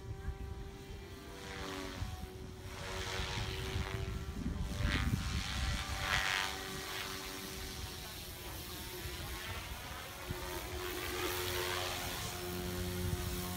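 Radio-controlled model helicopter flying and coming down to land: a steady rotor and motor whine that shifts in pitch as it manoeuvres, with a few louder rushing swells from the rotor in the first half.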